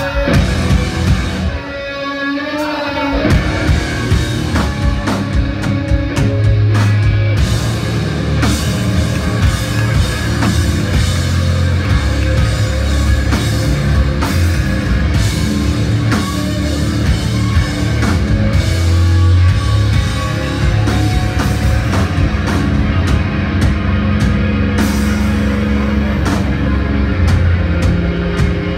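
Live rock band playing an instrumental passage: distorted electric guitars, bass and drums, loud throughout. Wavering guitar tones give way to the full band crashing back in about three seconds in.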